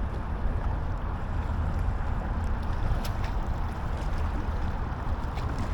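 Wind buffeting the microphone outdoors, a steady low rumble with no pitched engine note, with a few faint clicks about halfway through.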